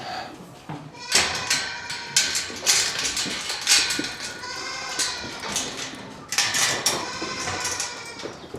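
Several goats bleating over and over, their calls overlapping, as the herd clamors at a gate for its morning grain.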